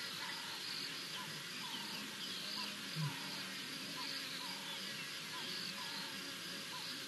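Steady chorus of insects in the bush, with a short chirping call repeating about twice a second and a single brief low thump about three seconds in.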